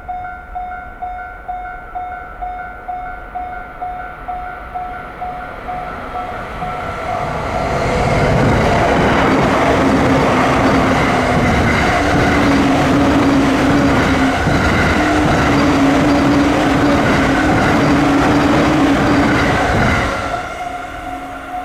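Japanese railway level-crossing warning bell ringing its electronic tone in a steady beat, about two strikes a second. From about eight seconds in a train passes over the crossing, a loud rumble with a steady low hum that drowns the bell for about twelve seconds, then the bell is heard again.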